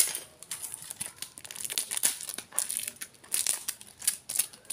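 Paper and packing-tape wrapping crinkling and tearing as hands grip and peel it off a cylindrical parcel: a dense run of short, irregular crackles.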